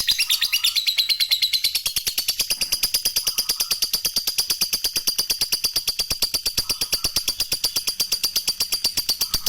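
Lovebird giving its long "ngekek" trill: a rapid, unbroken rattle of sharp high chirps, about a dozen a second, held at a steady level.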